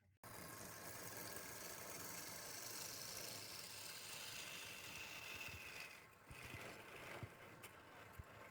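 Wood lathe running, with a steady hiss of a tool cutting the spinning wood that starts abruptly; the noise dips near the end, where a few light clicks come through.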